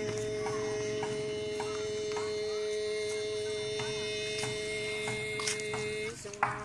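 Background music: a held two-note drone, a fifth apart, over a faint ticking beat of about two clicks a second, cutting off about six seconds in.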